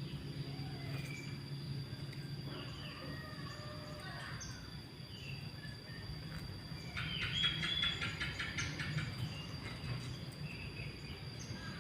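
Small birds chirping and twittering, with a fast, dense chattering trill from about seven to nine seconds in. A steady high-pitched whine and outdoor background noise run underneath.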